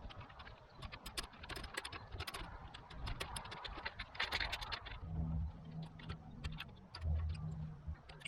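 Allen wrench working the bolts of a bike stem as they are loosened: a run of small metallic clicks and clinks, a short scrape about halfway through, then a few dull low bumps as the parts are handled.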